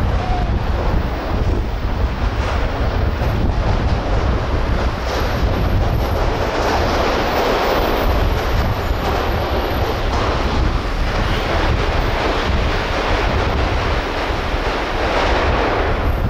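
Wind buffeting the microphone of a camera mounted on a moving car, with road rumble: a loud, steady low rumble under a rushing hiss that swells louder around the middle and again near the end.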